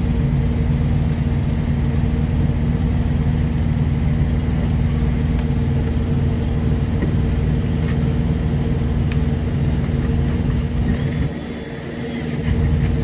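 A truck's diesel engine runs with a constant, steady hum. About eleven seconds in, a cordless drill whirs briefly as the air-box bolts are driven back in.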